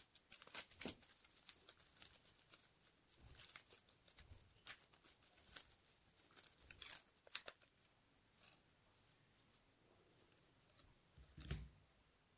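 Bubble-wrap plastic packaging crinkling and crackling faintly as it is opened and peeled off a stack of circuit boards, thinning out after about eight seconds, with a soft thump near the end.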